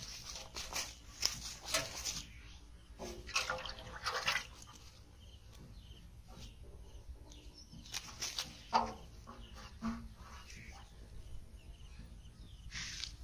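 Water splashing and slapping in a metal pot as live fish are lowered in and thrash, in several short bouts.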